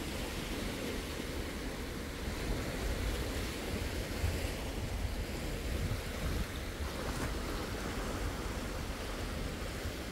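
Small sea waves washing steadily against the shore, with wind buffeting the microphone in uneven low gusts.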